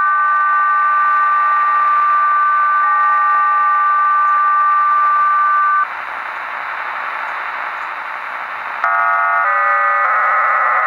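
HM01 Cuban numbers station received on shortwave, sending non-voice signals. For about six seconds it holds a steady two-tone signal, then there are a few seconds of radio hiss. Near the end a many-tone digital data signal starts and shifts pattern.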